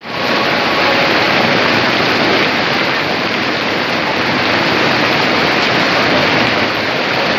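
Hail falling heavily on market umbrellas, plastic sheeting and pavement: a dense, steady hiss of countless small impacts.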